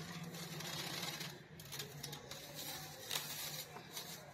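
Clear plastic bag of vegetables crinkling and rustling as it is handled, with a few light clicks, over a steady low hum.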